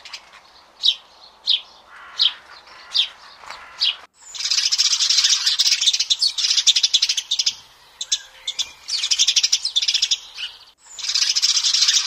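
Sparrows chirping: single sharp chirps about every half second for the first four seconds, then a dense, continuous chatter of many birds together, as from a flock, broken by a short gap near the end.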